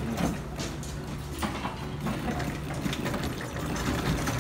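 Claw machine's gantry motors whirring as the claw moves into position, with small clicks over a steady low hum.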